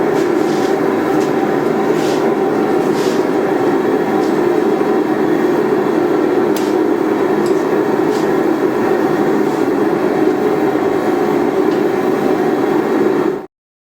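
A blacksmith's forge running with a steady, loud rumble, and a few faint light metal taps over it. The sound cuts out abruptly for a moment near the end.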